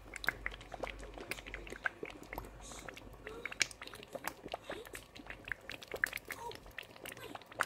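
Thick Nigerian stew simmering in a pot, bubbling with many irregular small pops and blurps.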